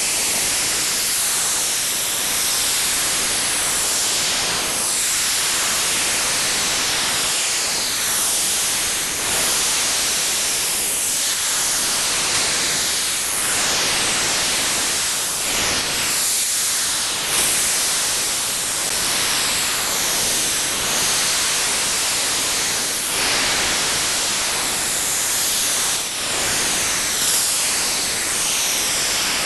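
Software-defined radio receiver putting out an unidentified noise-like transmission, possibly data: a loud, steady hiss with faint sweeping whooshes running through it.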